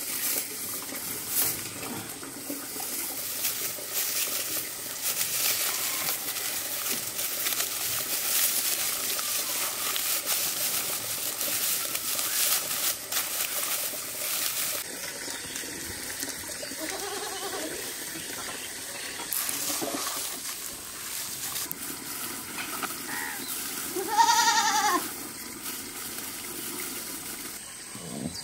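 Dry straw rustling and crackling as it is handled and pulled apart by hand, dying down about halfway through. Later an animal calls a few times, once loudly about three-quarters of the way through.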